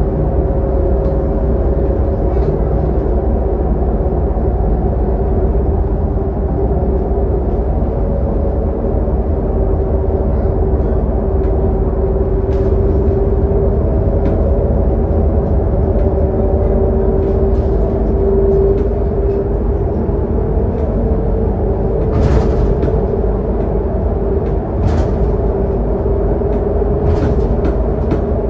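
Scania K280UD double-decker bus cruising at highway speed, heard inside the lower deck: its five-cylinder diesel drones steadily under the road rumble, with a constant whine running through it. A few brief ticks or rattles come in the last several seconds.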